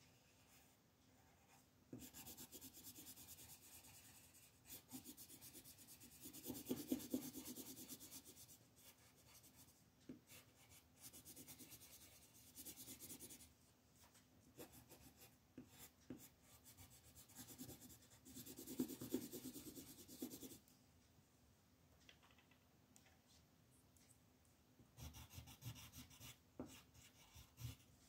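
Red coloured pencil scratching on a colouring-book page in quick back-and-forth shading strokes. The strokes come in runs with short pauses between them. A few soft knocks and rustles come near the end.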